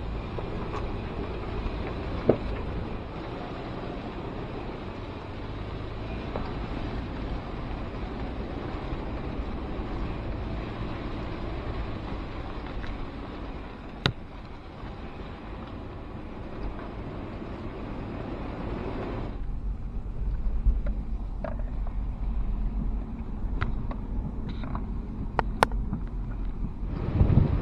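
Toyota 120 Prado V6 automatic climbing a steep dirt 4x4 track in low range: steady engine and tyre noise with two sharp knocks. About two-thirds of the way through, the sound turns to a deeper rumble with a few light clicks.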